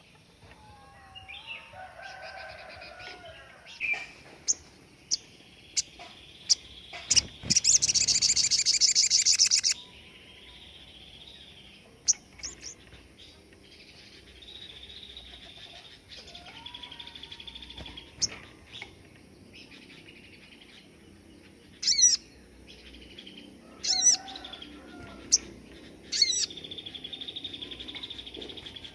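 A sogon songbird singing a varied song of whistles and warbles. It breaks into a loud, rapid trill about eight seconds in, and into sharp, loud high notes three times near the end. These are the bursts ('tembakan') that bird-song hobbyists use as tutor song for training caged birds.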